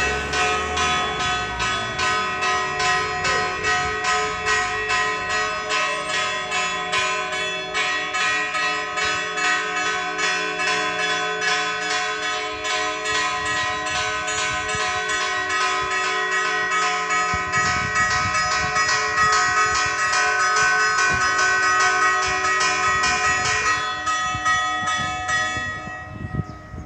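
Church bells pealing, several bells struck in quick, steady succession with their tones ringing on over one another. The strikes stop near the end and the ringing dies away.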